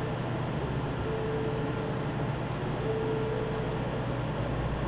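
Steady rush of air from a skin-cooling machine blowing cold air during laser tattoo removal, with a faint tone that sounds for about a second roughly every two seconds.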